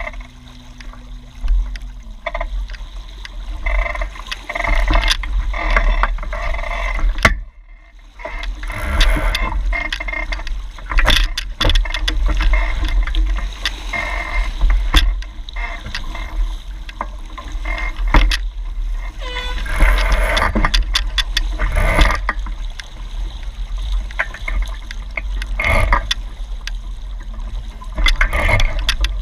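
Wind buffeting a microphone held just above the water, over water rushing and splashing against a Hobie 16 catamaran's hull as it sails. The noise comes in irregular surges and drops out briefly about eight seconds in.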